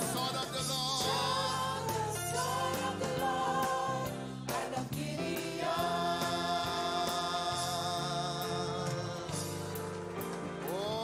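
A gospel choir singing with instrumental backing, holding long notes; the music dips briefly about four and a half seconds in, then swells into a long sustained chord.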